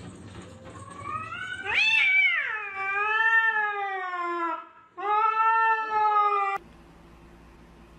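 Domestic cat yowling: a long drawn-out caterwaul that rises and then slides slowly down in pitch, then a second, shorter yowl that cuts off suddenly.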